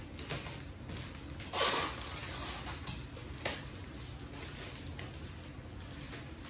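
Black florist wrapping around a large rose bouquet rustling and crinkling as it is pulled and handled, in short bursts, the loudest about one and a half seconds in, over a steady low hum.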